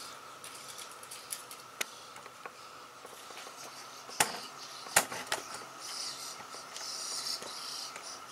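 A few sharp knocks, the loudest two about four and five seconds in, over a steady high chirring of insects.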